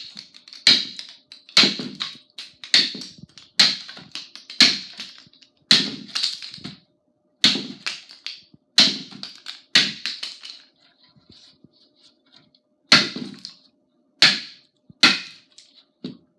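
Forged tomahawk chopping into a 2x4 held upright on a stump: a sharp crack of the blade biting the wood about once a second, a dozen or so strikes, with a short pause about two-thirds of the way through.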